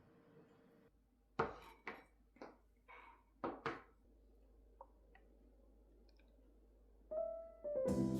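A quick run of about eight sharp knocks and clatters of hard household objects being handled, followed by a couple of faint ticks. Background music begins near the end.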